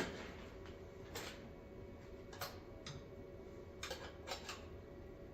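A few irregular, light metallic clicks and clinks from tools and metal parts being handled, with no engine running or cranking.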